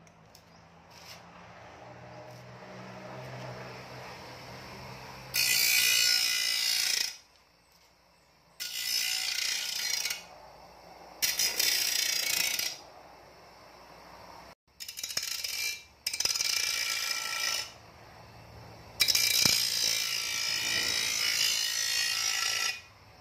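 Grinding wheel on a bench-mounted electric motor running with a low hum, then grinding a steel shovel blade in six passes, the last and longest near the end: each pass is a loud, harsh scream of the wheel on steel, dropping back to the motor's hum between passes. The blade's broken edge is being ground back into shape and sharpened.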